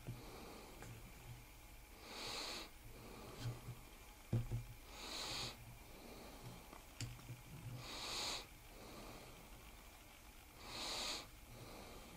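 Slow, steady breathing close to the microphone: a soft hissing breath about every three seconds, with a few faint clicks and a small knock from tools being handled.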